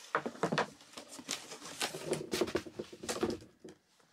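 Unpacking noise: a pair of tap shoes lifted out of a cardboard box and their wrapping, a string of irregular rustles, crinkles and small knocks.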